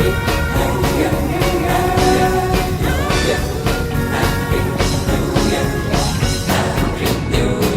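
Rock-style music with a steady beat.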